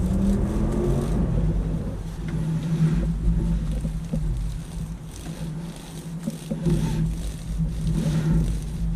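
A motor running steadily with a low hum, easing off for a couple of seconds in the middle before picking up again.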